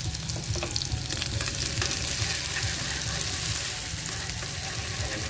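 Shallots frying in hot oil in a pan, a steady sizzle with a few light clicks near the start, over a low steady hum.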